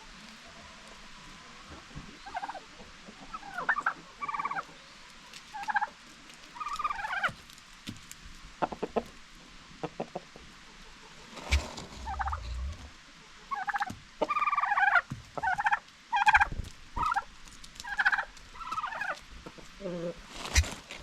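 Domestic turkeys gobbling and calling in short warbling bursts, one after another every second or so, with a few sharp clicks among them.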